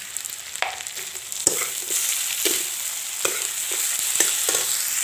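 Hilsa fish heads sizzling in hot oil in a metal kadai while a metal spatula stirs them, scraping and knocking against the pan several times.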